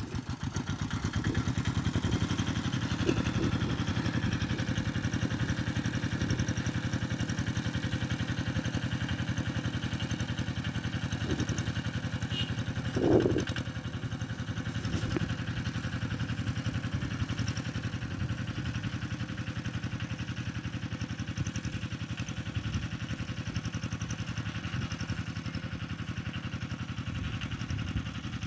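Engine of a motorised plough running steadily, with one brief louder clunk about halfway through.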